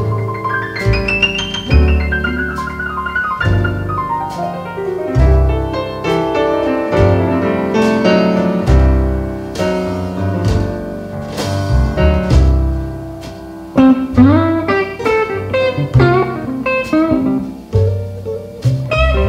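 Instrumental blues: piano playing sweeping runs and chords over a bass line with a steady beat. About fourteen seconds in, electric guitar comes to the fore with bent notes.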